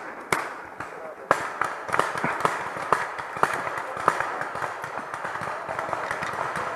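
Paintball markers firing in an exchange: a string of sharp, irregular pops, about one or two a second, over a steady background hiss.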